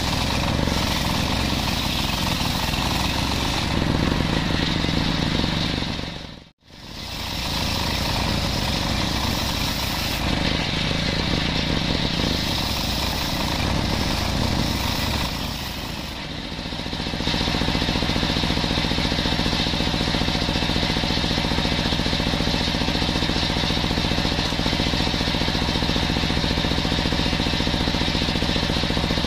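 Large table-mounted circular sawmill saw ripping jackfruit-wood timber lengthwise: a loud, steady rasp of the blade in the wood over the machine's running motor. It breaks off sharply for a moment about six and a half seconds in. From about seventeen seconds in the machine runs on with a steadier, even hum.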